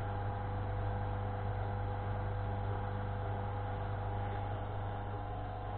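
Small salvaged DC motors from a DVD player and a cassette player running steadily as they turn a homemade wire-stripping roller, a constant hum and whir with a few steady tones.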